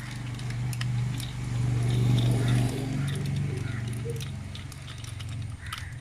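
Light clicks and taps of hand work on a motorcycle battery's terminals, over a steady low background hum that swells a little about two seconds in.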